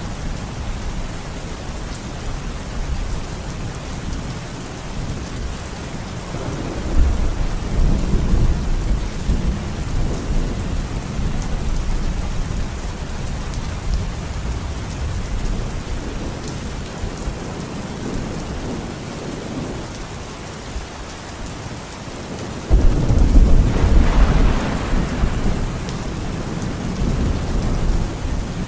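Heavy rain pouring steadily, with rolling thunder. A low rumble swells about seven seconds in, and a louder thunderclap breaks suddenly about 23 seconds in and rumbles on for several seconds.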